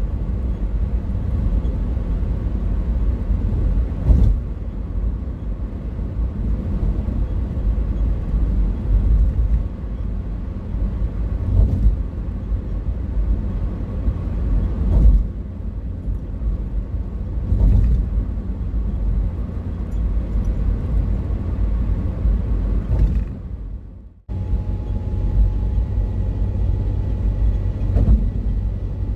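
Steady low rumble of a car's road and engine noise heard from inside the cabin while cruising on a motorway, with a few short thumps along the way. The sound drops out briefly about three-quarters of the way through, then resumes.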